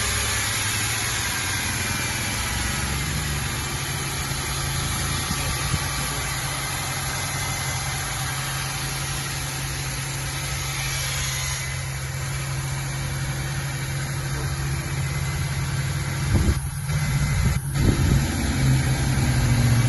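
Ford Mustang 3.8-litre V6 engine idling steadily just after a cylinder head rebuild, with irregular louder bumps near the end.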